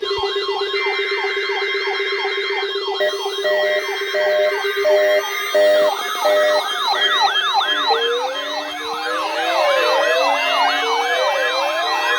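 Several electronic sirens wailing at once, their pitch sweeping up and down in quick repeating cycles and overlapping one another, over steady tones. A pulsing beep sounds about every half second from about three seconds in, stops after about six seconds, and more sirens with slower, wider sweeps join from about eight seconds in.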